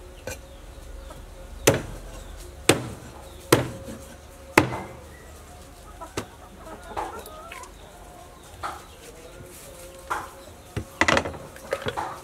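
Cleaver chopping a raw whole chicken on a wooden chopping board: four heavy chops about a second apart, scattered strokes after, and a quick run of chops near the end. Chickens cluck in between the chops.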